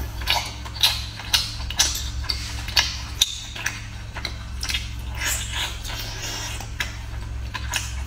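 Close-miked chewing and mouth smacking on the meat of a large sea snail: an irregular run of short wet clicks and squelches, about two a second, over a steady low hum.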